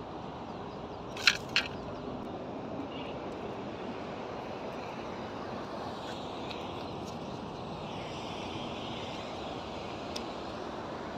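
Steady outdoor background noise, broken by two sharp clicks in quick succession about a second in and a faint tick near the end.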